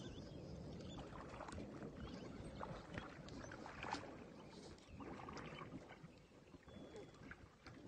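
Hooked channel catfish splashing and thrashing in the shallows at the shore, faint, irregular splashes over a low rush of wind on the microphone.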